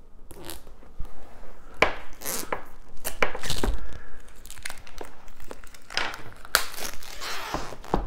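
Plastic shrink wrap on a cardboard box being slit with a knife and torn off, crinkling in irregular rustles and sharp scrapes.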